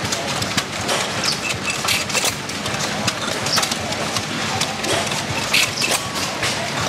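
Several antique small stationary gas engines running together, their firing pops and clanks coming irregularly, a few each second.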